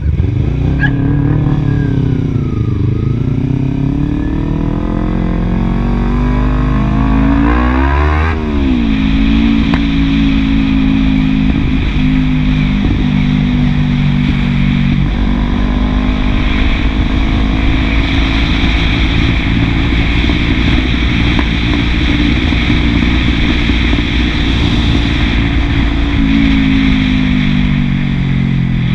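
Kawasaki Ninja 250R's parallel-twin engine through a 30 cm WR Authentic carbon-fibre slip-on exhaust. The revs dip, climb for about five seconds, drop sharply about eight seconds in, then hold steady at a high engine speed with a slight dip near the end.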